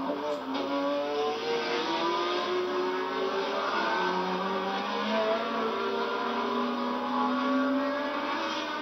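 Several 1970s Formula One race car engines running at once, their notes sliding up and down in pitch as the cars pass and change speed.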